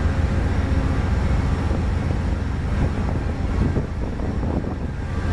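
Diesel locomotives rumbling at a station. An Amtrak GE Genesis P42 locomotive's engine runs with a steady, loud low rumble and hum while a freight train rolls past on a nearby track, with faint wheel squeal about three seconds in.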